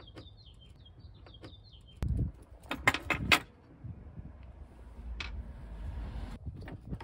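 Hard plastic clicks and rattles from a taillight housing and its bulb-socket wiring being handled, with a small screwdriver clinking against it. The clicks come in a cluster a couple of seconds in.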